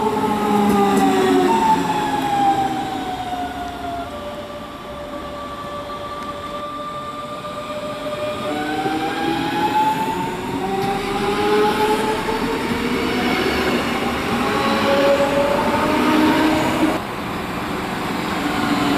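Electric multiple unit of the DB class 425/426 type running through a station, its traction motors whining in several tones over the rolling of the wheels. The whine falls in pitch over the first few seconds, holds steady, then rises again from about halfway. Near the end the sound cuts abruptly to another train approaching.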